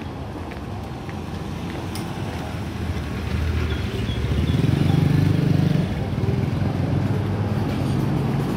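Street traffic with a motorcycle engine passing close by, growing louder from about three seconds in and fading again after the middle.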